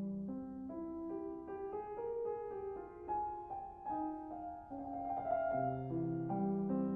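Instrumental background music on piano, a flowing line of held notes over a low bass note, with no water sound audible.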